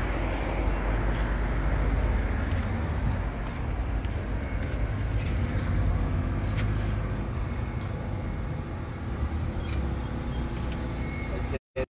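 Road traffic noise: cars passing on the street, a steady low rumble with a few small clicks, which cuts off suddenly just before the end.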